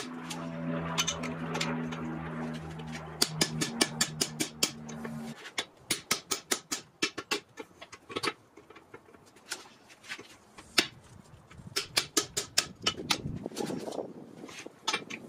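Hand hammer striking a handled punch driven into a red-hot billet of Atlantic 33 steel on an anvil, punching the eye of a rounding hammer head: quick runs of sharp metallic strikes, several a second, with short pauses between. A steady low hum stops suddenly about five seconds in.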